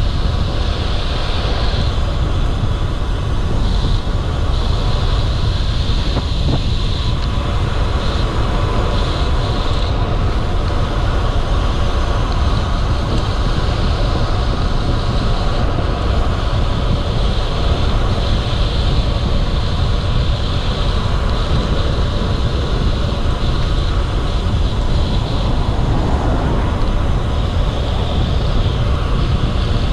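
Steady wind rumble on the camera microphone and tyre noise from a road bike being ridden, with a higher hiss that swells and fades every few seconds.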